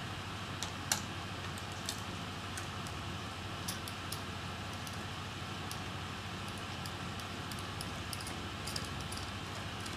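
Faint, scattered light clicks and ticks of a small screwdriver, screws and metal parts being handled while a laptop is taken apart, the sharpest about a second in, over a steady background hiss.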